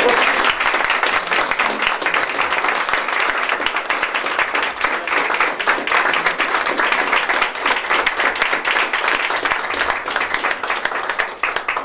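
An audience applauding: steady clapping from many hands that dies away near the end.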